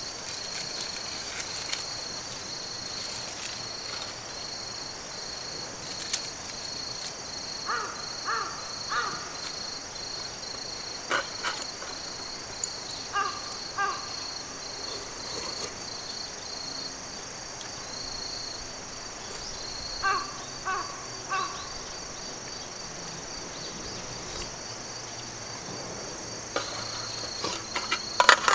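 Insects trilling steadily in the grass, with a crow cawing in short runs of two or three calls a few times. A few light clicks near the end from utensils handled on a small table.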